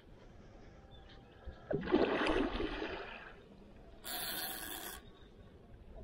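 A splash in the lake water about two seconds in. About a second later there is a brief hiss, which stops abruptly.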